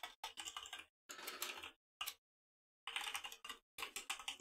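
Computer keyboard typing: quick runs of key clicks broken by short pauses.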